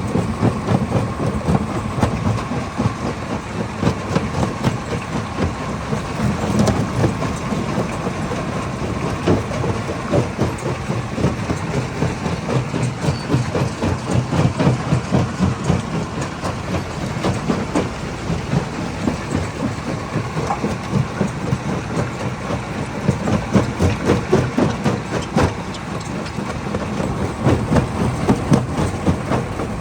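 Hammer-type stone crusher running under load, rock clattering and banging inside it in a dense, irregular rattle over a steady low machine rumble.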